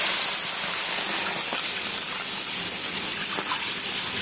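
Full-cream milk pouring steadily from a jug into a wide pan, a continuous gushing splash.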